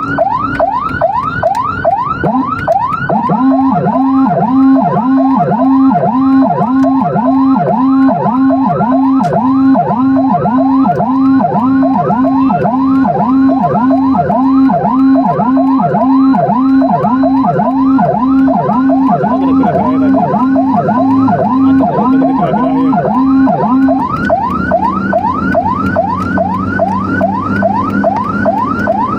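Emergency vehicle sirens in a fast yelp, each sweep rising in pitch and repeating several times a second. A second, lower pulsing siren sounds together with it from about three seconds in until a few seconds before the end.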